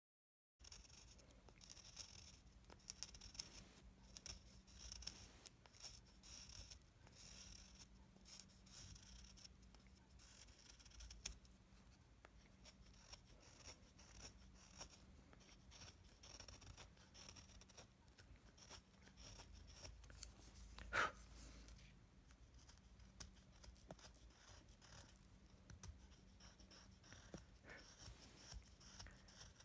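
Hand carving chisel paring thin shavings from a small wooden jizo figure: a faint, quick run of short scraping cuts, with one sharper click about two-thirds of the way through.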